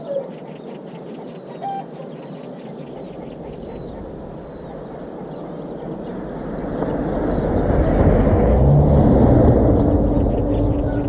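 Small birds chirping, a repeated short falling call. About halfway through, a passing engine's low hum swells to a peak and fades toward the end.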